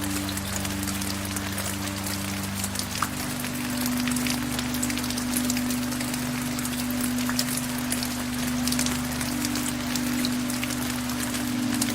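Steady rain falling, a dense patter of many small drops, with soft low sustained music tones underneath that change pitch about two and a half seconds in.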